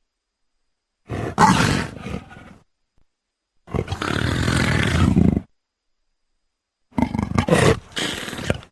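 Leopard calling three times, harsh, gravelly calls of one to two seconds each, separated by dead silence as between spliced clips.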